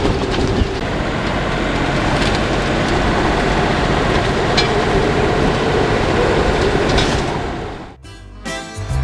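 Gale-force wind, gusting over 45 knots, buffeting the microphone on a sailboat: a loud, steady rush of noise with a few sharp knocks. It fades out near the end, and music starts in the last second.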